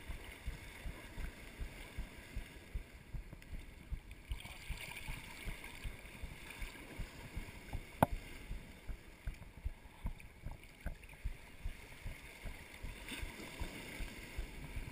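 Small sea waves sloshing and slapping around a camera held at the water surface, giving a constant wash with frequent irregular low thumps. A single sharp click about eight seconds in is the loudest sound.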